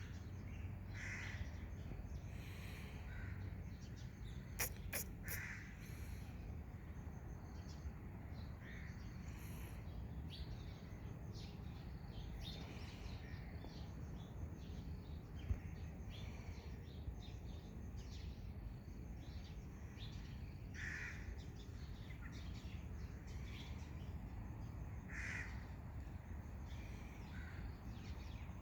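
A few brief animal calls, spaced far apart, over a steady low background hum, with a couple of sharp clicks about five seconds in.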